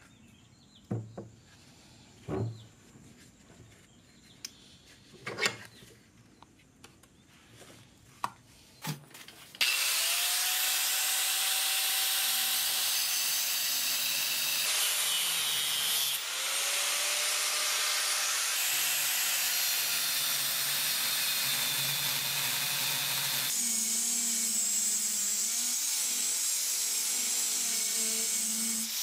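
A few scattered metal knocks. About ten seconds in, an angle grinder's cut-off disc starts cutting into the steel ring of an old ball bearing clamped in a vise, making a loud steady grinding that dips briefly once partway through.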